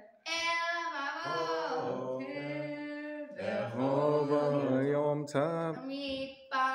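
A young male voice chanting a Hebrew prayer in long, held melodic phrases, breaking off briefly about halfway through.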